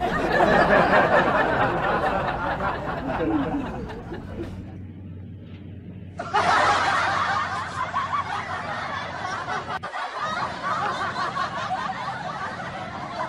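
Several people laughing together. The laughter fades out by about five seconds in and starts again abruptly about six seconds in.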